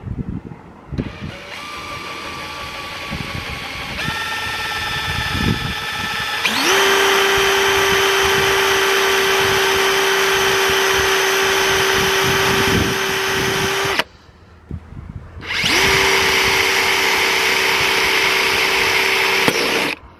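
Cordless drill driving a titanium-coated step drill bit into a painted metal housing: the motor starts slow, steps up in speed twice to a steady high whine, cuts off about fourteen seconds in, then runs again at full speed for about five seconds before stopping.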